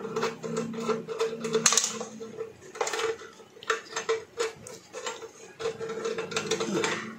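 Metal contact points of a rice cooker's thermostat switch being scraped clean, in short irregular strokes with light metallic clicks and clinks, to cure a loose contact.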